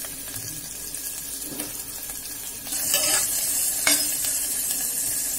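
Sliced onions and green chillies sizzling in hot oil in an aluminium pressure-cooker pot. The sizzle grows louder about two and a half seconds in as a metal ladle stirs them, with a couple of knocks of the ladle against the pot.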